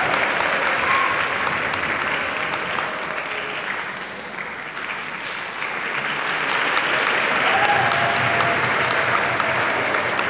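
Concert-hall audience applauding. The clapping eases off about four seconds in, then swells again.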